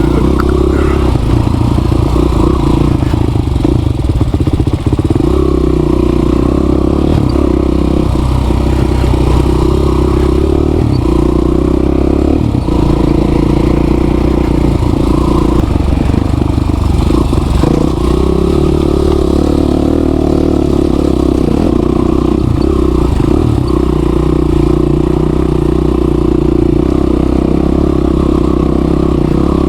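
Motorcycle engine running steadily at a fairly constant speed, with no break.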